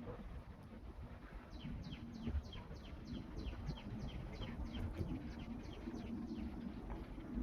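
A bird calling in a rapid series of short, falling chirps, about three or four a second, over a low rumble with a steady hum.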